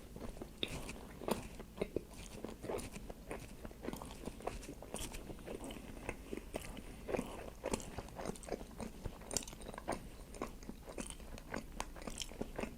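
A person chewing a mouthful of Italian beef sandwich with cheese sauce, making a string of soft, irregular mouth clicks and smacks.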